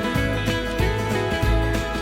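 Background music with a steady beat, a bass line and plucked guitar.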